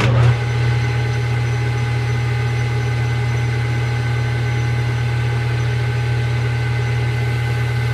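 Metal lathe switched on and running at a steady speed: a steady motor and spindle hum with a faint higher whine from the drive.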